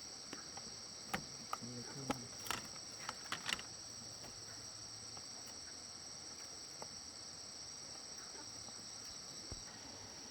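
Insects chirring steadily in a high-pitched chorus, with a few sharp clicks and knocks in the first few seconds.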